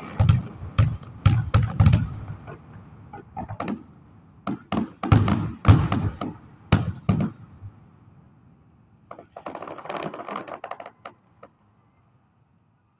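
Fireworks: aerial shells bursting in a rapid series of sharp bangs, loudest about five to seven seconds in, followed about nine seconds in by a short burst of dense crackling.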